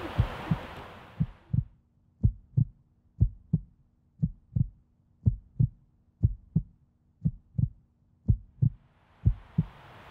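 Heartbeat sound effect: slow paired thumps, lub-dub, about once a second. Outdoor background noise fades away in the first second and fades back in near the end.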